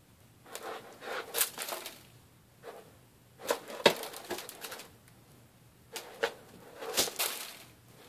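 Cat rolling and squirming in fresh, loose cat litter in a plastic litter box: irregular bursts of granules scraping and shifting, with quiet gaps between. Two sharp knocks stand out, one a little before the midpoint and one near the end.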